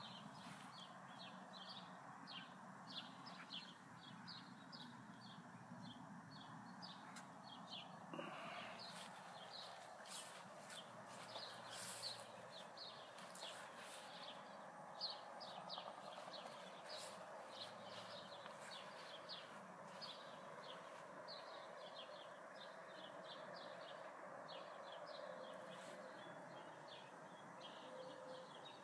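Faint outdoor ambience of a summer garden: short, high chirps repeat a few times a second without a break, over a soft steady hiss.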